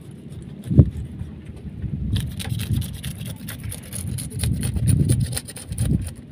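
Knife blade scraping scales off freshly caught fish, red tilapia and carp, in rapid short strokes starting about two seconds in. A single knock about a second in, and a low rumble underneath.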